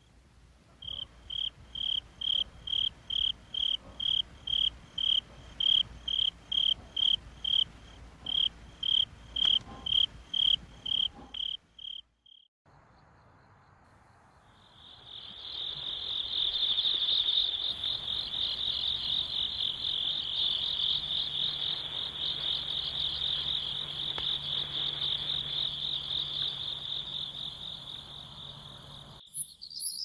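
Crickets chirping at night, a regular high chirp about twice a second. After a brief break, a continuous high, rapidly pulsing trill from another singing insect takes over, then fades near the end.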